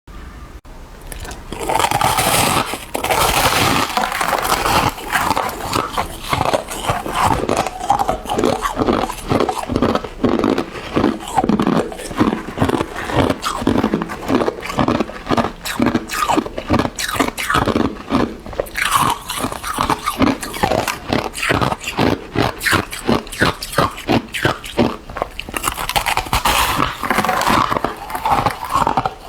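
A person biting and chewing hard ice: a rapid run of crunches, a few each second, with longer, louder bites now and then.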